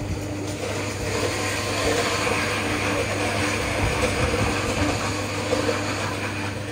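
A vehicle passing close by: its noise swells about a second in and eases off near the end, over a steady low hum.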